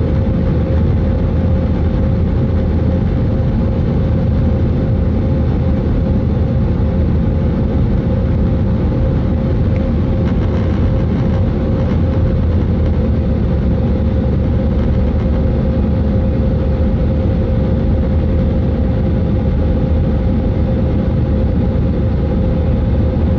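Airbus A320 jet engines at climb power heard inside the cabin during the climb after takeoff: a steady, loud low rumble with a constant droning hum over it.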